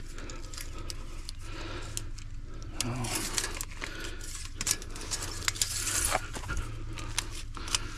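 Irregular light metallic clicks and clinks scattered throughout, like keys or small metal gear being handled.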